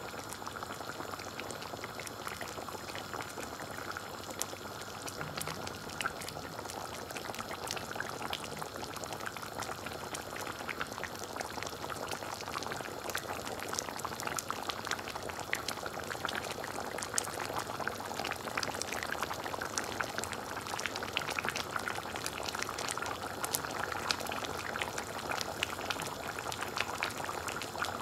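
Chicken and bottle gourd curry simmering in a pan, a steady crackle of small bubbles popping in the thick sauce.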